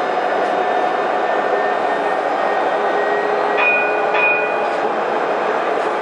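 Alstom Citadis tram of the Dubai Tram running along the line, a steady noise of wheels and drive with a faint steady hum. A little past halfway come two short high tones about half a second apart.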